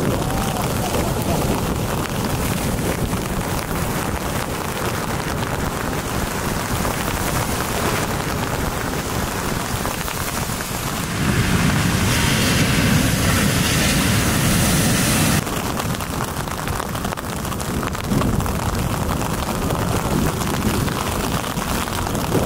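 Heavy storm-swell surf: waves breaking and whitewater rushing, a steady dense rush of noise. It is louder for about four seconds in the middle, starting and stopping abruptly.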